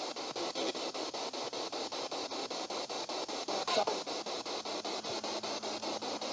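Spirit box sweeping rapidly through radio stations: steady static chopped about ten times a second, with a brief snatch of a voice-like sound about four seconds in, which is captioned as the word "Don't".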